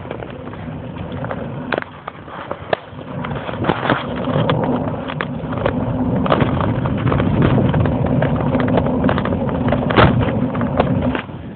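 Wind and road noise from a moving bike. A steady rumble grows louder about three and a half seconds in, and scattered sharp knocks and rattles run through it.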